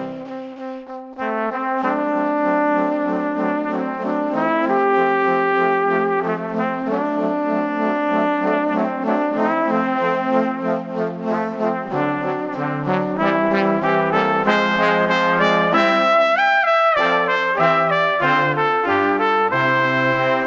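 Background music led by brass: a trumpet-like melody over sustained lower notes.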